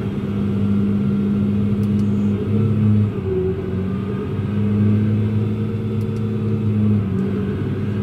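Tractor's diesel engine running steadily under load, heard from inside the cab, its pitch dipping briefly about three seconds in and again near the end.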